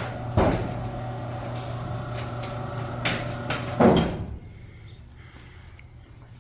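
Electric garage door opener running as the door moves, a steady motor hum with a knock about half a second in and a louder clunk about four seconds in, after which the hum stops.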